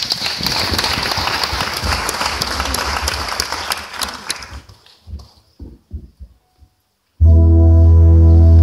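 Audience applauding, thinning to a few last claps about five seconds in. After a brief silence, a loud sustained organ-like keyboard chord starts near the end.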